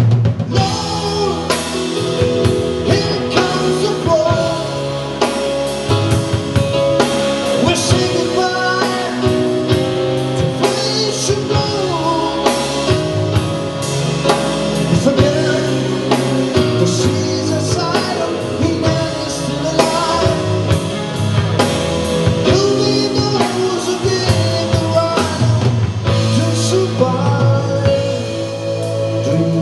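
A live rock band plays: electric guitars, keyboards and drum kit, with a man singing over them.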